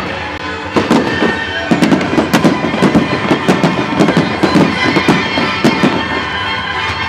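Fireworks display: a rapid volley of sharp firework bangs starts about a second in and goes on for about five seconds. It plays over the show's music, which has held notes.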